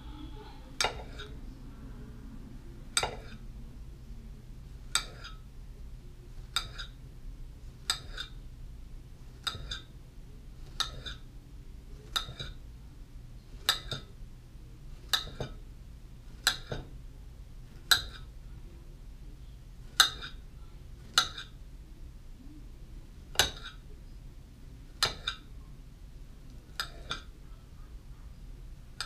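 Kitchen knife slicing a peeled banana on a plate, the blade clinking sharply against the plate at the end of each cut, about one cut every one to two seconds.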